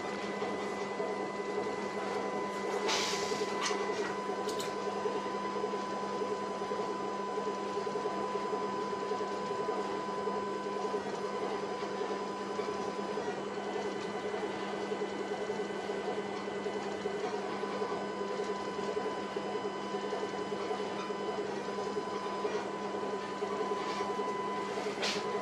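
Steady machinery hum aboard a ship, with faint steady electronic whine tones above it. A short rustle comes about three seconds in and a click near the end.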